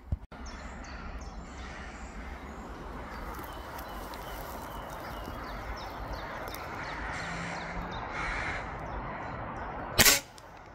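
Crows cawing, then near the end a single sharp crack of a Weihrauch HW99S air rifle firing, a shot at a jackdaw in the trees.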